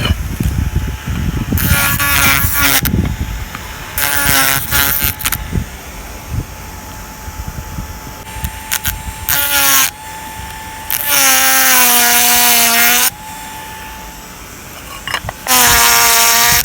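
Electric power carving tool cutting a shari into shinpaku juniper deadwood: a steady high whine that five times drops to a lower, louder note for a second or two as the bit bites into the wood.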